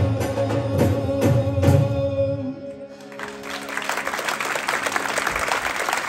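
Live Gujarati Garba folk music, with drum strokes and a held note over them, comes to an end about two and a half seconds in. After a brief pause, audience applause starts and keeps going.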